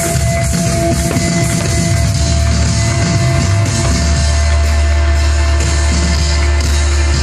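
Loud live music from a festival stage's sound system, with a deep bass note that sets in about four seconds in and holds.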